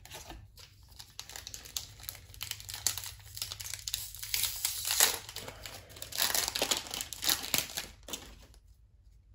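Foil trading-card booster pack wrapper crinkling and tearing, as a pack is opened by hand. The crackle runs in uneven waves and dies away about a second before the end.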